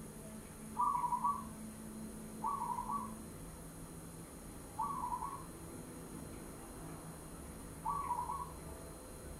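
Zebra dove calling: four short, trilled cooing notes, each about half a second long, spaced a couple of seconds apart.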